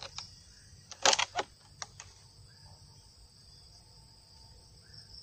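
A few sharp plastic clicks a little after one second in, from the pump action of a homemade PVC gas-powered shotgun being worked and readied to fire. A steady high insect buzz runs throughout.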